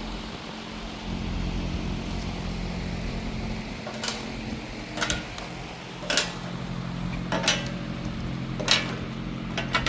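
Steady low mechanical hum with about five sharp clacks, spaced a second or so apart, of hard plastic and metal parts being handled.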